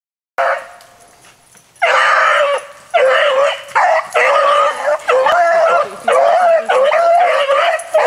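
Hounds baying: one long call near the start, then from about two seconds in a steady string of long, wavering bawls, roughly one a second with short breaks, typical of hounds running a rabbit's track.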